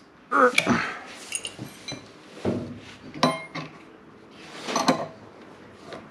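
Metal tools clinking and knocking against steel machine parts in a handful of separate strikes, the one about three seconds in ringing briefly.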